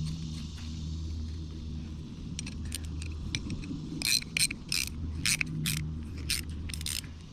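Thread-cleaning die being turned down a rusty, WD-40-lubricated bolt, with sharp metal clicks and squeaks as it cuts through the corrosion: a few scattered ticks, then a regular run of about two clicks a second from about halfway through. A steady low hum lies underneath.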